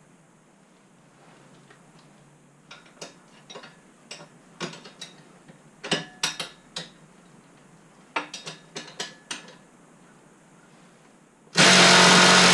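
Metal hand tools clinking and knocking in a scattered run of sharp clicks, as sockets and wrenches are handled; near the end a power tool's electric motor starts running loudly.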